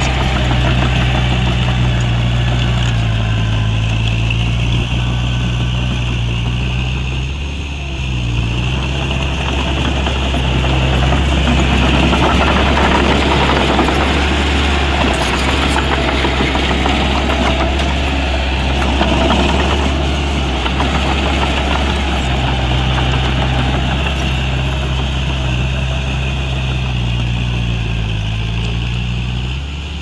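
Heavy diesel engine of earth-moving equipment running, its pitch dipping and recovering several times as the load changes. A rougher, louder spell of mechanical noise comes in the middle.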